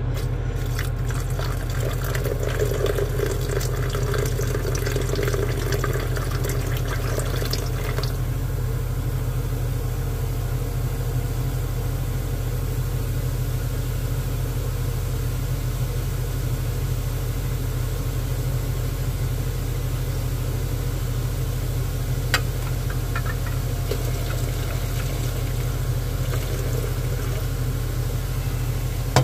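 Hot diluted nitric acid being poured from a container into a large glass beaker of silver-plated wire, for about the first eight seconds, over a steady low hum. A single light click comes about two-thirds of the way through.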